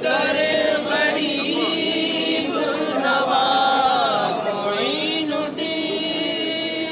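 A group of men singing a devotional Sufi manqabat to Khwaja Moinuddin Chishti together, in long, drawn-out chanted lines.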